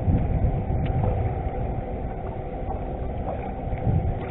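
Steady hum of a bass boat's motor over a low, uneven rumble, with a few faint clicks.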